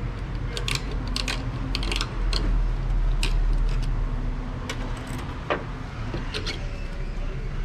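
Steel and friction clutch plates from a Ford 10R80 transmission's CDF clutch hub clinking against each other and the hub as they are pried loose with a screwdriver. A string of light, scattered metallic clicks sits over a steady low hum.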